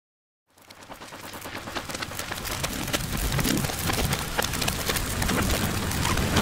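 Dense crackling and popping over a low steady hum, fading in from silence about half a second in and growing louder.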